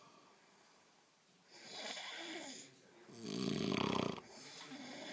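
A person snoring loudly: a breathy snore about a second and a half in, then a louder snore with a low, buzzing vibration past the halfway point that trails off into a softer breath near the end.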